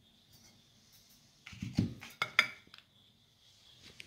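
A bowl being set down on a table: a short cluster of knocks and clatters about a second and a half in, after a quiet start.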